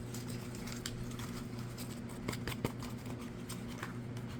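Small scattered clicks and rustles of packaging being handled and opened by hand, over a steady low hum.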